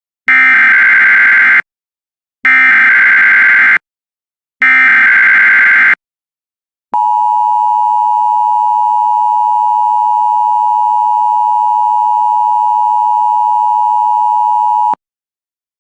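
Emergency Alert System header: three identical bursts of SAME digital data, a harsh buzzing warble each about a second and a half long with a second's gap between, then the steady attention tone held for about eight seconds before it cuts off. It announces an emergency alert, here a tornado warning.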